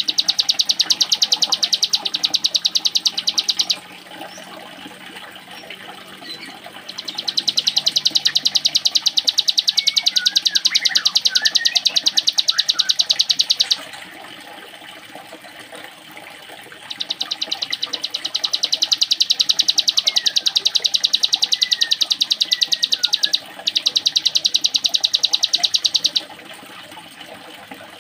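Ciblek gunung (mountain prinia) singing its 'ngebren' song, a very fast, buzzing, machine-like trill likened to a sewing machine, delivered in long runs of several seconds each with short pauses between. Faint softer chirps sound in the pauses.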